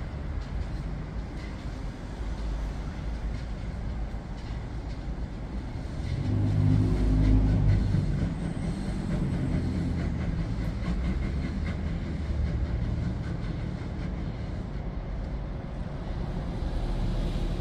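A train moving away along the station tracks, a low rumble that swells to its loudest about six to eight seconds in and then eases.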